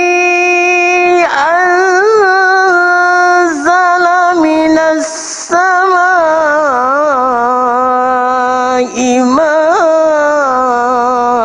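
Male Quran reciter chanting in the long melodic tajwid style, holding notes for several seconds and turning them with ornamented rises and falls in pitch. A short breathy pause about five seconds in.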